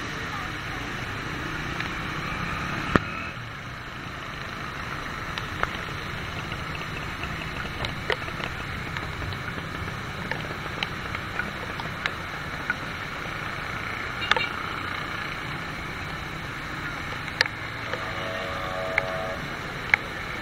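Motorcycle ride through heavy rain heard from a helmet camera: a steady rush of wind, rain and tyres on the wet road over a low engine hum, with scattered sharp clicks.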